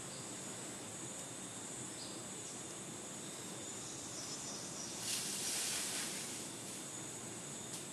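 Forest ambience: a steady high insect drone. A louder hissing rush of noise lasts about a second, a little past the middle.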